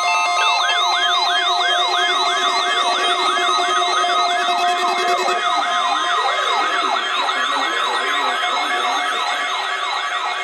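Several weather radio alarm sirens sounding together. A fast, repeating rising whoop, about three a second, joins about half a second in, over a slower up-and-down wail and steady alert tones.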